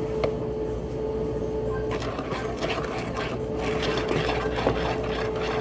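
Rapid scraping and clinking of kitchen utensils against a mixing bowl, starting about two seconds in, over a steady hum.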